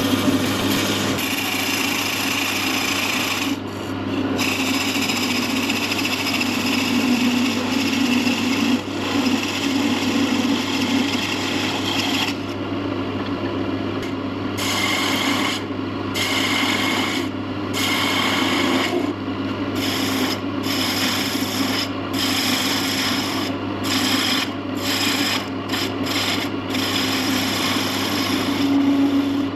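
Wood lathe running with a steady motor hum while the spinning patchwork lamp blank of mixed timbers rasps against a hand-held tool in repeated passes. The scraping breaks off briefly between passes, about a dozen times, while the hum carries on.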